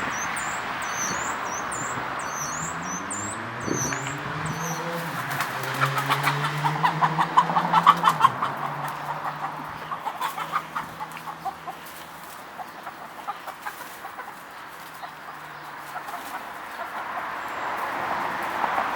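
Chickens clucking and squawking in a fast run of calls, loudest a few seconds in and then dying down. High bird chirps sound over the first few seconds.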